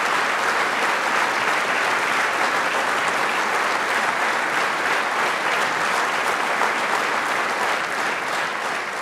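A large audience clapping: dense, sustained applause from a hall full of people, starting to fade near the end.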